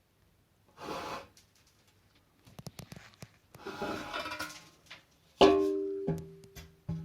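Metal plasterer's straightedge rule scraping along a freshly plastered wall, twice, then a sharp knock that leaves a ringing metallic tone fading over about a second.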